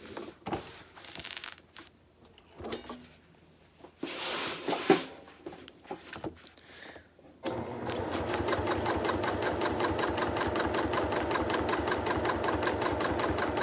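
Fabric rustling as it is positioned under the presser foot, with a sharp knock about five seconds in. About seven seconds in, a domestic electric sewing machine starts stitching at a steady, rapid rhythm, top-stitching a strap onto a bag panel.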